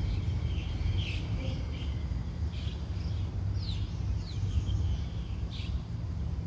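Birds chirping, with a few quick sweeping calls about halfway through, over a steady low rumble.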